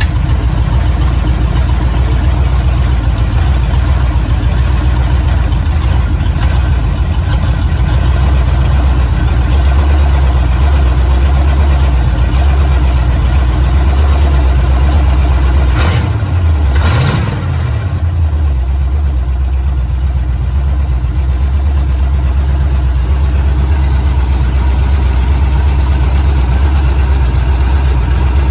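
An engine idling steadily with a deep, even rumble. Two short, sharp sounds come about a second apart roughly two-thirds of the way in.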